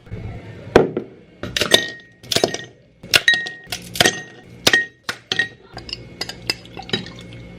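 A glass clinking as hard objects strike it: about a dozen sharp, uneven clinks, several leaving a brief ringing tone.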